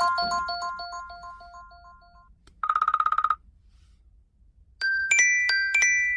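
iPhone ringtones playing one after another. A repeating chime melody fades out; about two and a half seconds in, a brief rapid buzzing trill like an old telephone bell sounds; near five seconds a new ringtone of bright bell-like notes begins.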